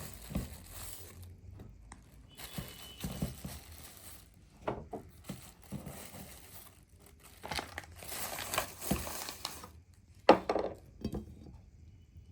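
Packaging crinkling and rustling in three spells as food is handled, with one sharp knock about ten seconds in.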